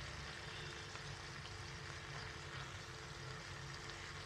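Faint, steady sizzle of eggplant sabzi cooking in a pan over low heat, with a steady low hum underneath.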